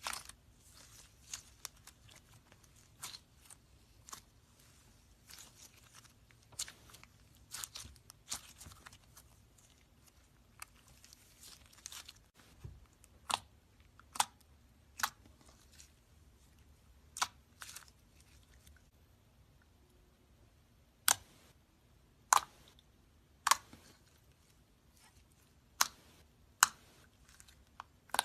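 Glitter slime being squished and poked by hand, making sharp popping clicks from trapped air bubbles at irregular intervals. The pops are small and frequent at first, then louder and more spaced out through the second half.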